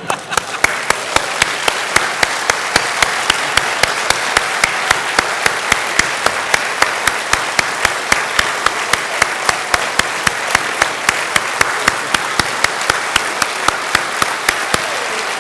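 Congregation applauding steadily in a large hall, with one nearby clapper standing out in an even beat of about two to three claps a second.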